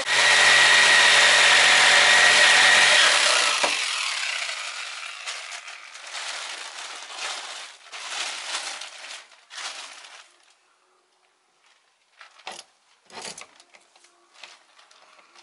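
Corded jigsaw running loud and steady as it cuts through the van's wooden plank ceiling for about three and a half seconds, then stopping. Fainter, irregular scraping and handling noises follow and fade out, with a couple of short knocks near the end.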